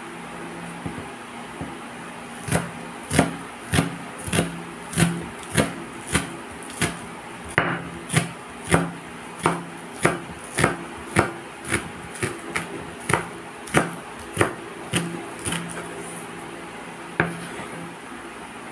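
Chef's knife chopping green onions on a bamboo cutting board: a steady series of blade knocks on the wood, a little under two a second, with one last chop near the end.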